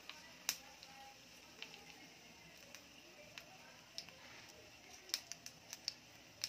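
Mustard and cumin seeds popping in hot oil with dried red chillies in a small pan, a tempering (tadka) spluttering on the gas stove. Scattered sharp pops, coming more often in the last couple of seconds.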